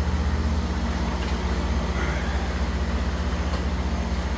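Steady low electric hum of the aquaponic system's pump running.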